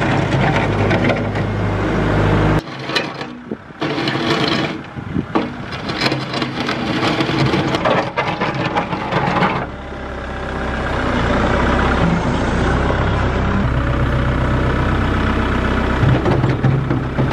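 Kubota compact tractor's diesel engine running while its front-loader bucket pushes snow. The sound breaks off sharply about two and a half seconds in and shifts several times, as the shots change.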